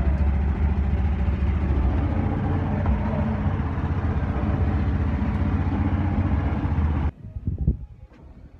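Motorboat engine running steadily with a low rumble, cutting off abruptly about seven seconds in, leaving only faint clicks and handling noise.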